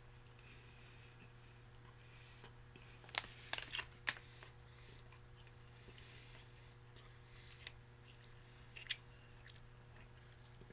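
Quiet mouth clicks and smacks of a man chewing tough, dry pork jerky, with the rustle of its plastic bag as he picks it up, over a steady low electrical hum. A short cluster of sharp clicks about three seconds in is the loudest part.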